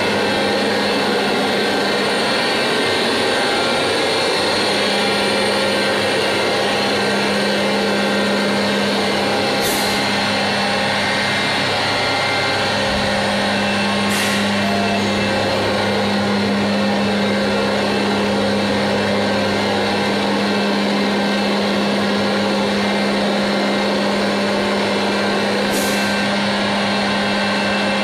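Vacuum conveyor for powders running: a steady, loud noise of rushing air and motor with a low hum. A brief, sharp hiss of air cuts in three times.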